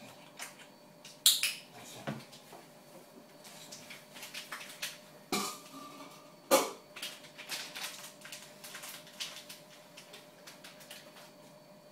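Stainless steel dog food bowl and utensils being handled: three sharp metallic clanks, the loudest about a second in, with lighter clinks and rattles between them and a quick run of small clicks near the end.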